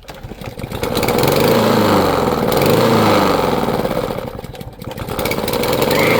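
Small lawn mower engine struggling to start: it runs up, sags about four and a half seconds in, then picks up again near the end without settling to a steady run.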